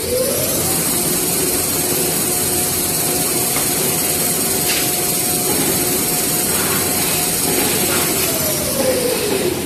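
Toilet paper and kitchen towel paper machine running one cycle: a whine rising in pitch as it speeds up, a steady whine with rumble and a high hiss while it runs at speed, then a falling whine as it slows near the end.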